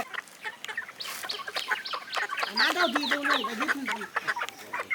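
Live country chickens clucking and squawking: many short, quick calls overlapping one another.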